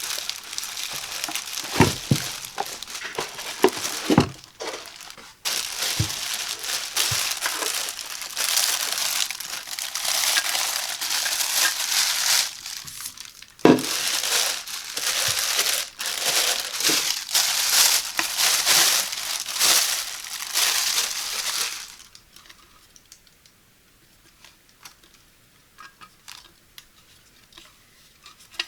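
Packaging being unwrapped and handled, crinkling and rustling with a few sharp knocks. About three quarters of the way through it drops to a few faint light taps.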